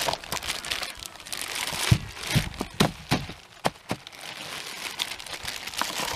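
Plastic bag of ice cubes crinkling as the ice is shaken out into a plastic jug. Several sharp knocks come in the middle as cubes drop into the jug.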